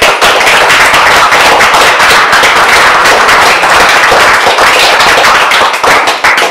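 Audience applauding: dense, loud clapping that thins out into a few last claps near the end.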